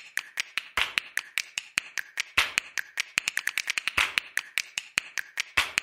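A quick series of sharp clicks or taps, about five a second, with a louder click about every second and a half.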